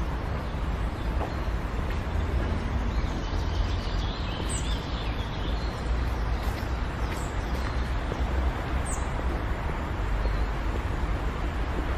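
Outdoor ambience under trees: small birds give a few short high chirps and some faint twittering over a steady low rumble.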